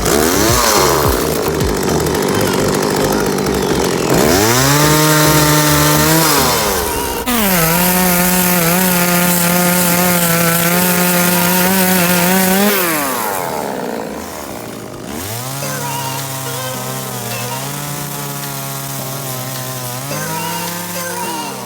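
Two-stroke chainsaw revving up and cutting branches, the engine note rising and falling several times and held at high revs for about five seconds in the middle, with the rasp of the chain biting into wood.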